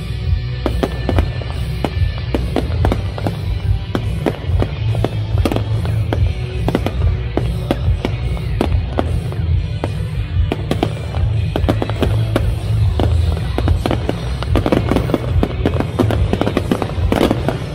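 Display fireworks bursting in a rapid, continuous run of bangs and crackles over loud music from the show's sound system. The bangs come thicker and louder a few seconds before the end.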